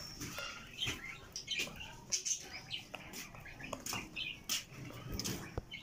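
Hand wire whisk beating thick banana cake batter in a bowl: irregular soft clicks and slaps of the wires against the batter and bowl.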